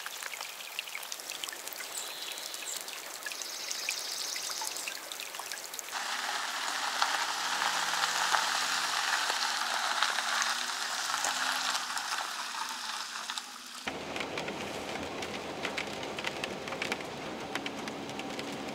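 Steady rain falling on a lake. About six seconds in it gives way to a louder hiss as a Roadtrek Zion campervan drives by on a wet road, its engine note rising and falling. About fourteen seconds in comes road and rain noise from inside the moving van.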